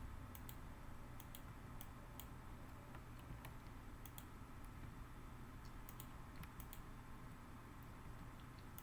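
Faint, irregular clicks of a computer mouse and keyboard, a few a second, over a steady low hum.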